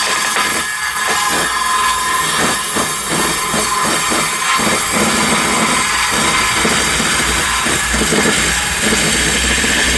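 A power saw ripping lengthwise through timber: a loud, steady cutting noise with an uneven pulsing as the wood feeds through the blade.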